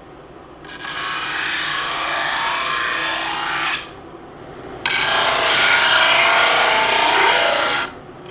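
A benchtop drum sander grinding down a long wooden strip fed through it twice, a rasping noise for about three seconds each pass, the second pass louder. Between the passes the machine runs unloaded, much quieter.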